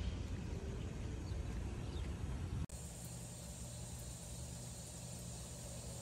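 Outdoor ambience: a steady low rumble, then after an abrupt cut about two and a half seconds in, a quieter steady background with a thin, high, continuous insect buzz.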